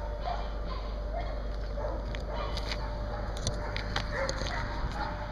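A dog giving short, high yips and whines again and again, over a steady low rumble, with a few sharp clicks around the middle.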